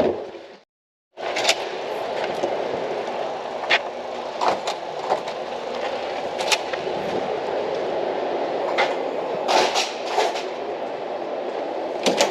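Steady rumble of a truck moving, heard from inside the cab, with scattered clicks and knocks of rattles.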